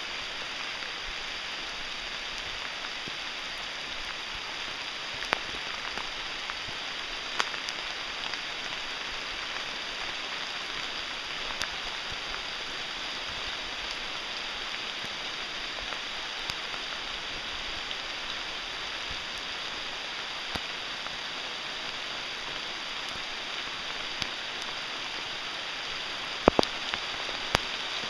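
Steady rain falling on the forest canopy and trail, an even hiss, with occasional sharp ticks of single drops and several close together near the end.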